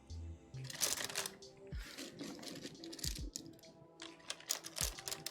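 Mechanical keyboard switches being pressed and handled, giving a few irregular clicks and clacks, over soft background music.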